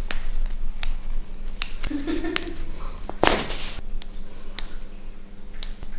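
Chiropractic spinal manipulation: one sharp, loud pop about three seconds in, where the thrust is delivered, among a few small clicks and taps of hands on the patient and the treatment table.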